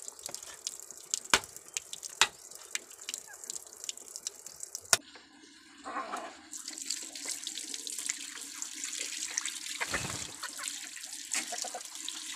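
Kitchen knife chopping on a wooden board, a few sharp knocks with the last one loudest. Then, about six seconds in, a tap running steadily with water splashing over meat being rinsed by hand.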